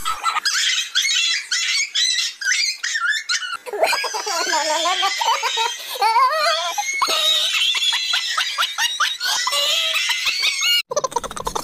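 High-pitched laughter and shrieking squeals, in quick bursts, with pitch rising and falling. It breaks off abruptly near the end.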